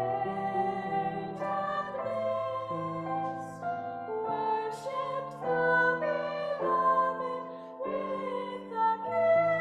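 Three girls singing a slow song together in harmony, held notes changing about once a second, over a low accompanying part.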